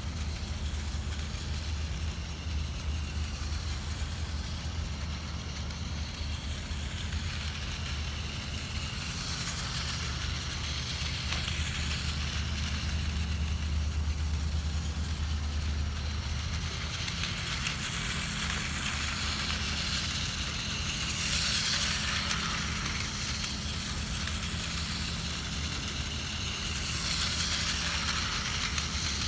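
Outdoor fountain water splashing, swelling and fading several times, over a steady low hum.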